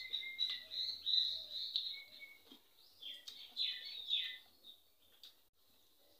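Small birds chirping, with a quick run of three or four short downward-sliding calls about three seconds in. Faint clicks of eating underneath, fingers working rice and greens.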